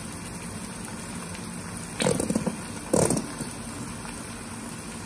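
Chopped vegetables sizzling steadily in a wok over a high gas flame. About two and three seconds in come two short sputtering bursts as tomato ketchup is squeezed into the pan.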